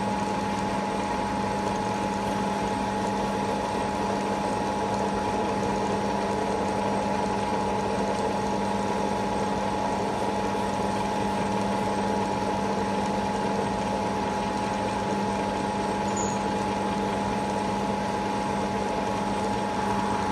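Milling machine running steadily with the cutter fed down into the work, milling a taper: an even machine hum with a low and a higher steady tone that does not change.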